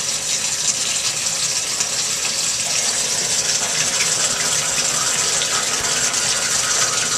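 Water running steadily through a bathtub drain pipe, heard as an even hiss. The tub strainer fitting and the trap on this drain are leaking.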